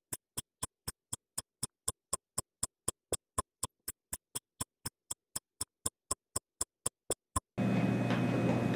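Sharp, evenly spaced ticks, about four a second, like a ticking-clock sound effect over silence. About seven and a half seconds in they stop and give way to steady room noise with a low hum.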